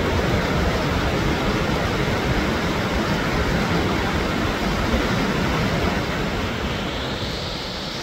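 Floodwater pouring over a dam's weir and rushing over rocks in a steady, dense rush, with a higher hiss rising in pitch near the end.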